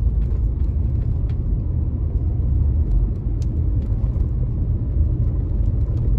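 A car driving on a wet street, heard from inside the cabin: a steady low rumble of engine and tyres, with a few faint scattered ticks.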